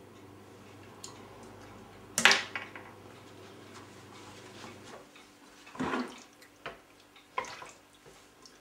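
Kitchen handling sounds while eggs are separated at a sink: one sharp knock about two seconds in, then a wooden spoon knocking and scraping in a steel pot a few times near the end.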